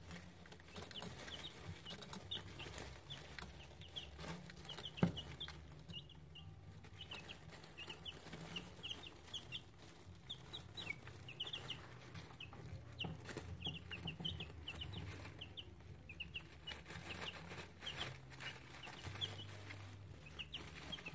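A group of two-week-old buff chicks peeping, many short high chirps several a second. A single sharp knock about five seconds in, over a steady low hum.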